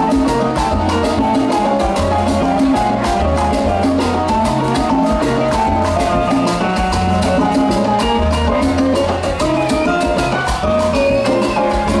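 A live salsa band playing, with keyboard lines over a repeating bass pattern and steady percussion.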